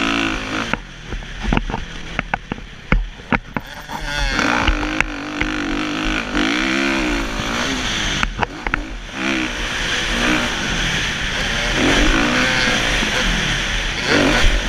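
Kawasaki KX450F's four-stroke single-cylinder engine revving up and down through the gears, heard from the rider's helmet camera. It drops off throttle about a second in, with a run of sharp knocks, picks up again about four seconds in, and eases off briefly again about eight seconds in.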